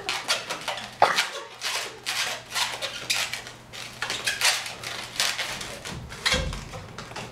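Latex modelling balloon being twisted and squeezed into a balloon animal: an irregular run of squeaks and rubbery creaks.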